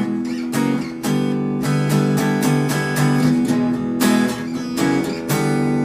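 Fender Jazzmaster HH electric guitar played with a clean tone on its bridge humbucker: chords strummed in a quick rhythm of several strokes a second, changing chord every second or so.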